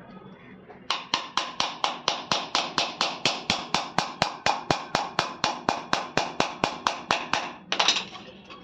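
Hammer tapping small nails into a wood panel: a quick, even run of about thirty light blows, some four or five a second, followed by one louder clatter near the end.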